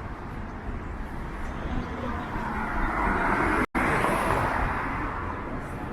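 Downtown street traffic: a car passes close by, its tyre and engine noise swelling about halfway through and then fading away. There is a momentary break in the sound at its loudest.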